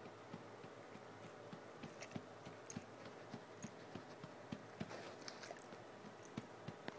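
Six-month-old Saint Bernard–mastiff cross puppy mouthing and chewing close to the microphone: irregular wet clicks and smacks, two or three a second.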